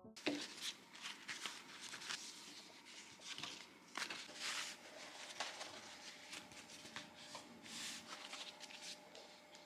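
Faint, irregular rustling and crinkling of stiff beeswax-coated cloth wraps being handled and stacked on a wooden table.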